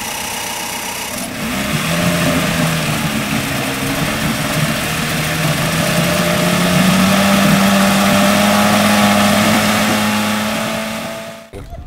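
Vintage Mercury two-stroke outboard motor running just after starting, its pitch and loudness climbing a little over the first several seconds and then holding steady. The sound cuts off abruptly near the end.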